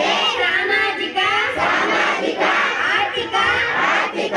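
Large crowd of adults and children reciting a pledge in unison, many voices chanting the words together in phrases with brief pauses between them.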